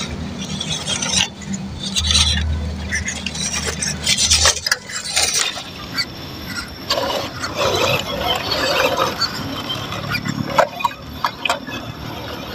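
Small electric RC crawler (MN99S Land Rover Defender, 1/12 scale) driving through a shallow rocky stream: water splashing and sloshing around its tyres, with irregular clicks and knocks of tyres on stones.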